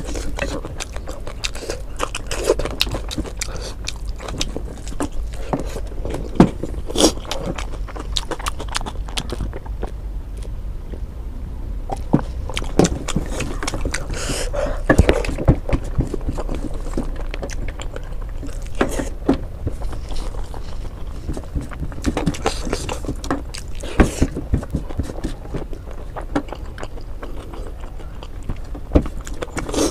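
Close-up chewing and wet mouth smacking of rice, with irregular clicks. Fingers scrape and tap on a stainless steel plate as the rice is gathered by hand.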